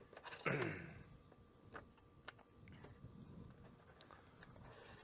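Small parts and packaging from a doorbell kit being handled: a louder rustle about half a second in, then a few faint scattered clicks and taps.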